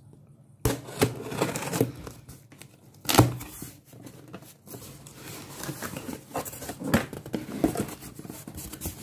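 Cardboard shipping box being opened by hand: packing tape slit and torn along the seam, then the flaps pulled open, with irregular rustling, scraping and knocks. A sharp knock about three seconds in is the loudest moment.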